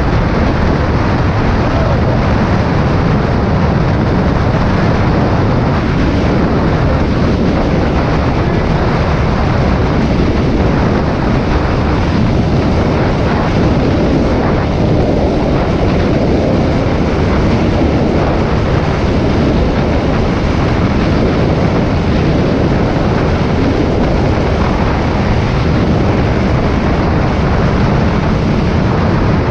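Wind rushing over the microphone together with a Honda Click 125i scooter's single-cylinder engine running flat out at top speed, around 100 km/h. A steady, loud rush that does not change.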